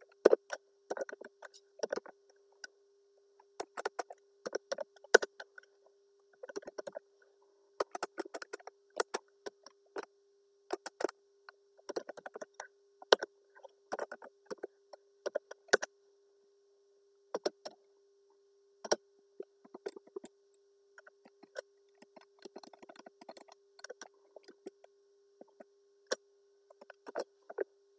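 Computer keyboard typing and mouse clicks in irregular bursts, with a short pause about halfway through. A faint steady tone runs underneath.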